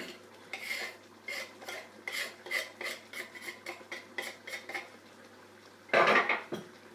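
A metal utensil clinks and scrapes against a pan in quick strokes, about three a second, for several seconds. A louder clatter follows about six seconds in.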